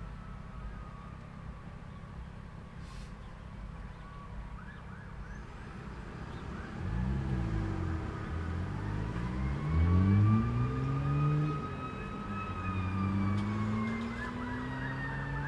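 Road traffic with an emergency vehicle's siren wailing slowly up and down. From about seven seconds in, a vehicle engine pulls away, revving up and dropping back several times as it shifts gears, loudest around ten seconds.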